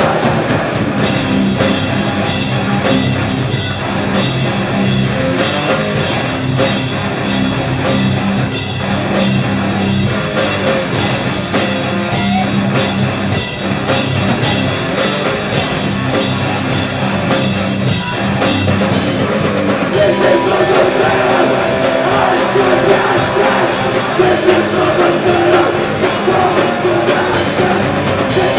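A rock band playing live: electric guitars through Randall amplifiers and a drum kit. The cymbals get brighter and louder about twenty seconds in.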